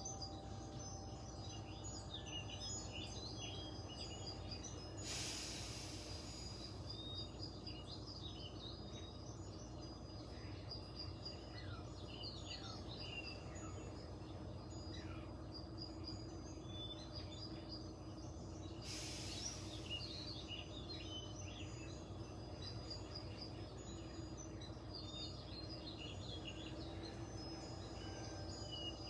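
A woman's slow, deep breaths, heard twice as a soft rush of air about a second and a half long: deep rib-expanding inhales. Faint bird chirping and a low steady hum go on throughout.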